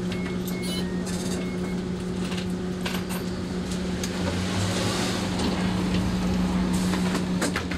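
Inside a city bus standing at a stop, its engine idling as a steady hum, with short electronic beeps and clicks from the driver's ticket machine as passengers pay. About halfway through, the doors close with a rush of noise.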